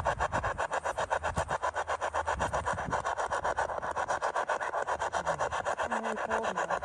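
Ghost-hunting spirit box sweeping through radio stations: a steady choppy hiss of static pulsing about seven or eight times a second, with a few brief snatches of tone about five seconds in.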